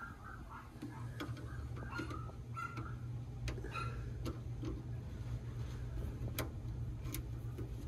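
Irregular metallic clicks of a hand wrench working a bolt on a fuel-hose fitting under the truck's frame, over a steady low hum.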